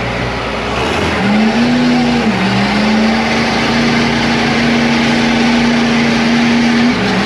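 Engine of a lifted mud truck held at high revs under full load in a truck tug of war. A loud steady drone climbs about a second in, settles, holds, and drops a little near the end.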